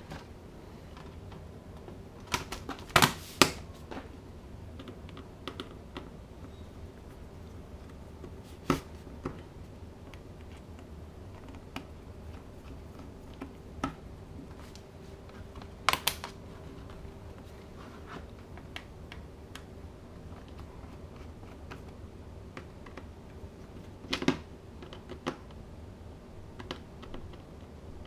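Scattered sharp plastic clicks and light taps from handling a Lenovo X1 Carbon laptop, a few louder snaps among many soft ticks.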